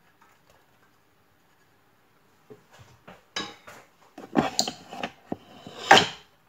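Kitchen clatter: a plate and utensil knocking against a stainless steel pot as chopped onion and garlic are tipped in. It is quiet at first, then a run of sharp knocks begins about two and a half seconds in, the loudest near the end.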